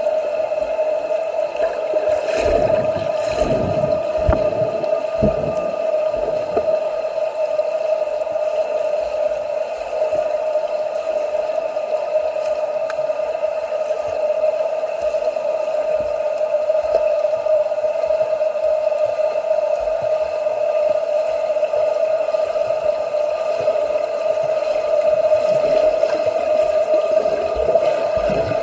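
Swimming-pool sounds during swim training: water splashing and sloshing from swimmers over a steady hum, with a few louder splashes in the first few seconds.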